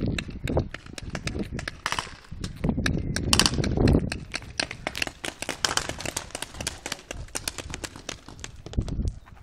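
Footsteps crunching on dry, gravelly ground at a walking pace, with a dense run of small clicks and a low, uneven rumble on the microphone.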